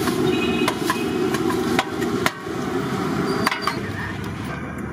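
Roadside street-food stall ambience with traffic noise, broken by several sharp knocks.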